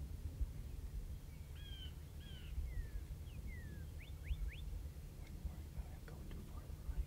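A songbird sings a short phrase of clear whistled notes (curved notes, then falling slurs, then three quick rising sweeps) starting about a second and a half in, over a steady low rumble.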